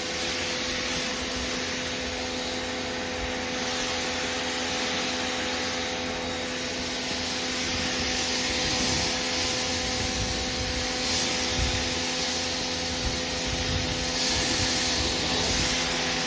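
Nilfisk pressure washer running with its standard nozzle, the pump motor humming steadily under the hiss of the high-pressure water jet rinsing foam off a car.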